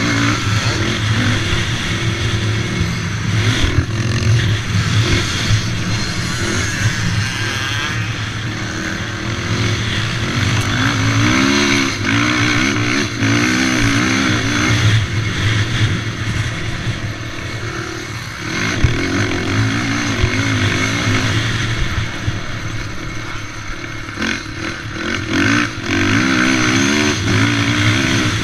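Racing quad ATV's engine, heard onboard, revving up and down over and over as the rider works the throttle and gears on a motocross track, with brief throttle-offs around the middle and near the end.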